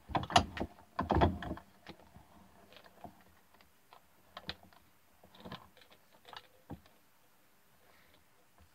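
Bench vise being tightened by hand on a battery: a few loud metal knocks in the first second and a half, then scattered light clicks and clinks as the steel handle bar is turned.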